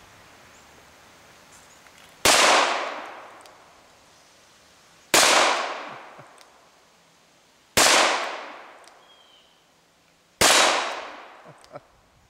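Four shots from a Taurus Model 94 .22 Long Rifle revolver, fired about two and a half to three seconds apart. Each shot is a sharp crack that echoes away over about a second.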